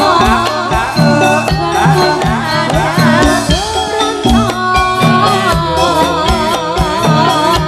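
Jathilan music, Javanese folk dance music: a wavering sung melody over a steady drum beat.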